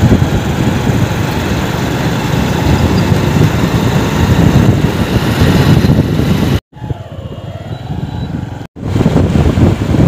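Wind rushing over the microphone and road noise from a motorcycle riding along a highway, a loud steady noise heaviest in the low range. It cuts out abruptly twice, about two-thirds of the way in and again two seconds later, and is quieter between the cuts.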